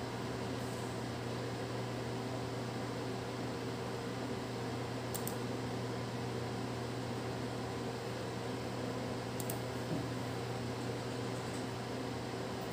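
Steady fan-like running noise with a constant low hum, the room tone of running machinery; two faint short clicks about five and nine and a half seconds in.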